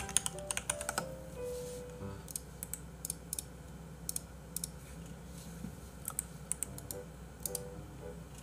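Computer keyboard and mouse clicking: a quick run of keystrokes in the first second, then scattered single clicks.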